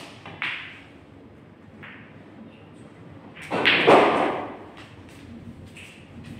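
Pool shot: the cue tip clicks sharply against the cue ball, and about half a second later pool balls clack together. About three and a half seconds in comes the loudest sound, a dull thud with a short rumble lasting about half a second.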